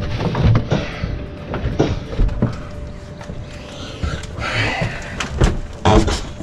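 A heavy item being manhandled and dragged across a wooden floor: a string of knocks and thumps, with a scraping rub partway through.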